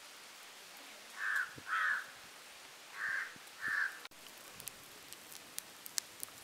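A crow cawing four times, in two pairs of harsh calls. From about four seconds in, a wood fire crackling with scattered sharp pops.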